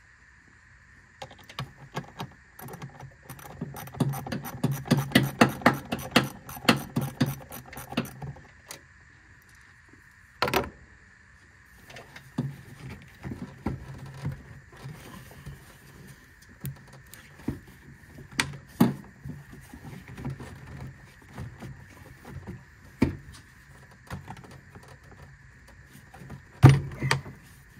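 A 10 mm ratchet clicks in quick, irregular runs as it loosens a worm-drive hose clamp. Then come scattered knocks and rubbing as the rubber air intake tube is twisted and pulled off, with one sharp knock near the end.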